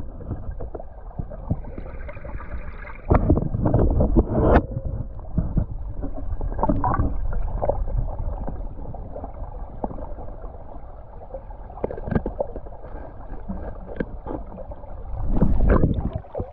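Muffled underwater creek sound, a low gurgling rush heard through a submerged camera. Several sharp knocks come about three to four and a half seconds in, and a loud rushing swell near the end as the camera breaks the surface.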